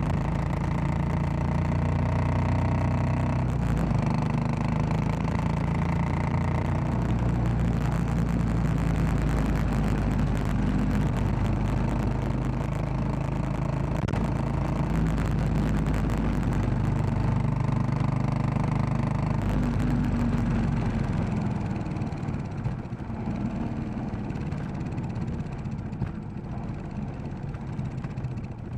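Royal Enfield Classic 500's single-cylinder engine running under way, its note shifting in pitch as the revs change; about two-thirds of the way through it drops to quieter, lower running.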